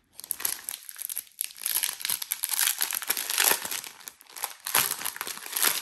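Small plastic sachet of diamond-painting drills crinkling and crackling as it is worked open by hand, louder about halfway through and again near the end.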